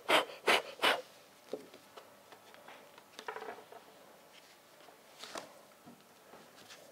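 A sheet of drawing card knocked edge-down on a wooden tabletop three times in quick succession, shaking loose soft-pastel dust. After that only faint rustling and small taps as the paper is handled and laid flat.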